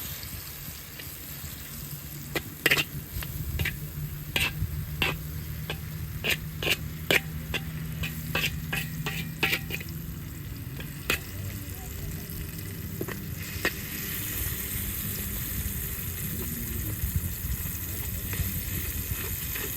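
Food sizzling as it fries in a pan over an open fire and is stirred, with a run of sharp clicks and taps from about two to eleven seconds in. The hiss turns steadier and brighter in the last few seconds.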